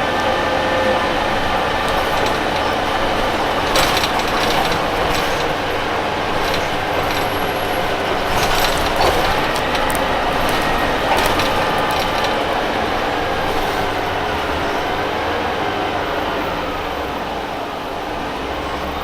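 Orion VII CNG transit bus running on the road, its Detroit Diesel Series 50G engine and Allison B400R transmission giving a steady drone over road rumble. Rattles and knocks come about four seconds in and again between eight and twelve seconds, and a whine glides up and down in pitch near the end.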